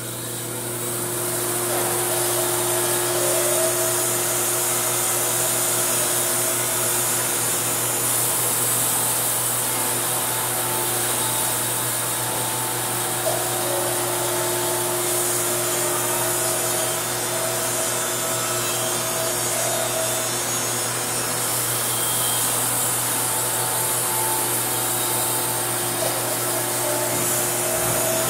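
Wood-Mizer LT50 band sawmill running and its band blade cutting through a box elder log. The sound is a steady machine drone that swells over the first couple of seconds and then holds even.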